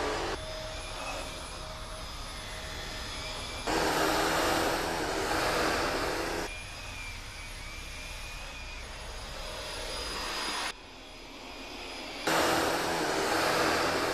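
Dyson Ball upright vacuum cleaner running: a steady rushing whoosh of air with a thin motor whine over it. The loudness jumps abruptly several times, louder for a few seconds at a time.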